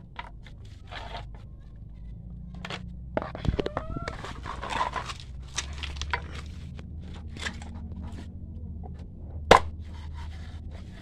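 Scattered knocks and scrapes of a large knife and a slippery eel being handled on a wooden chopping board. One sharp knock comes about nine and a half seconds in.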